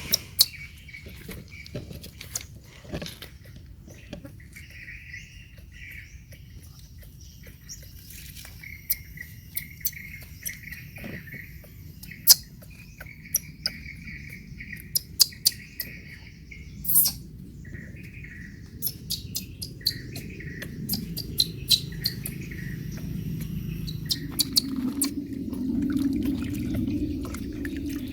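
Baby monkey giving repeated short, high chirping squeaks, with scattered sharp clicks and taps between them.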